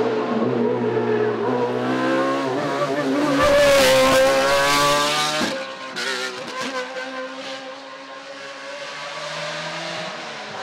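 Hillclimb race car engine at full throttle, its pitch rising as it accelerates and loudest about four seconds in. About five and a half seconds in the note drops sharply as the throttle is lifted, followed by a burst of cracks and pops. The engine then runs on quieter and steadier.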